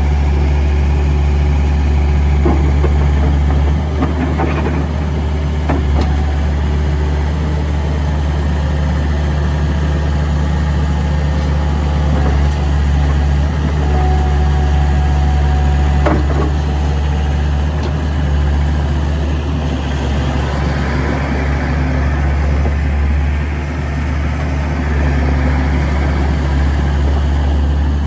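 The 82 HP John Deere diesel engine of a John Deere 328 skid steer loader running steadily, with a few short knocks now and then.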